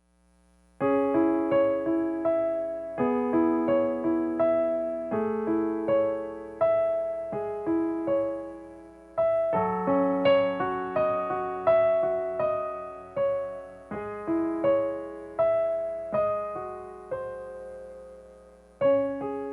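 Slow, gentle solo piano playing an improvised melody over repeating broken chords, the notes struck one by one and left to ring and fade, starting about a second in.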